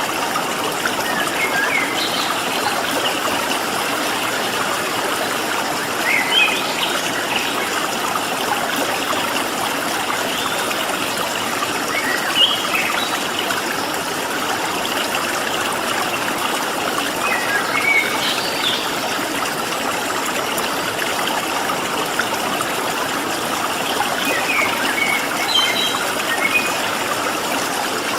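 Water flowing in a stream with a steady rush, and a bird giving short, high chirped phrases about every six seconds.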